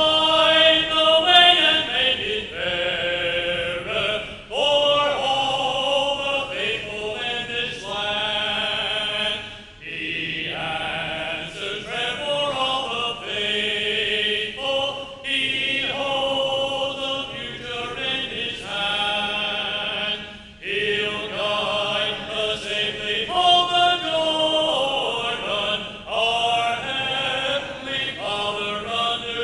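Congregation singing a hymn unaccompanied, with a man's voice leading at the microphone. The notes are held in phrases of about five seconds, with brief pauses for breath between.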